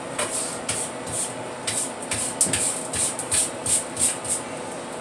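Long-handled oven brush scrubbing the floor of a wood-fired pizza oven in brisk back-and-forth scratchy strokes, about two to three a second.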